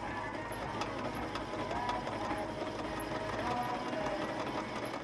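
Homebuilt Gingery metal lathe running under power, its boring bar spinning and cutting inside a cast aluminium tailstock as the lead screw drivetrain feeds it: a steady mechanical whir.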